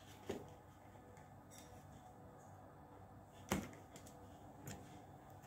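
A few light clicks and taps from handling jalapeño slices on a sandwich on a foil-lined tray. The loudest comes about three and a half seconds in. Underneath is quiet room tone with a faint steady hum.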